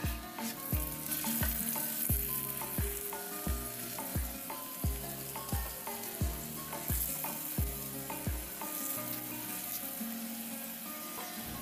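Stuffed paratha sizzling as it fries in oil on a tawa griddle, under background music with a steady low drum beat about every 0.7 seconds.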